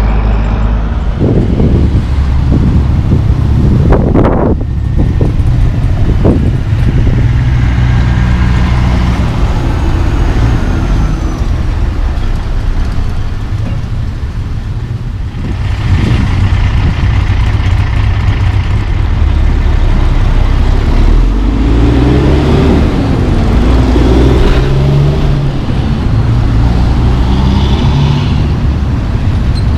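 Highway traffic with Class 8 semi-trucks and cars passing close by: diesel engines running and tyres rolling on pavement. A few sharp knocks come in the first few seconds, and a truck engine's pitch wavers up and down about three-quarters of the way through.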